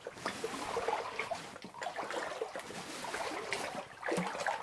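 Water in a flooded mine adit: a dense, irregular patter of small splashes and trickling.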